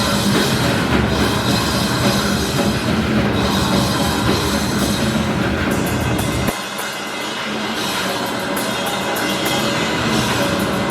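Loud live rock music from a band with a full drum kit. About six and a half seconds in, the bass and kick drum drop out, leaving the higher instruments and a run of short cymbal-like hits.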